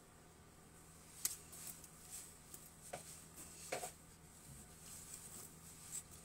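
Purple florist's wire being wound by hand around a broom handle: a few faint, scattered clicks and taps of the wire against the handle, over a low steady hum.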